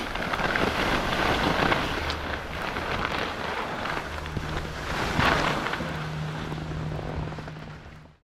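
Skis sliding and scraping over packed snow, with wind rushing on the action camera's microphone. A low steady hum joins about four seconds in, and everything fades out near the end.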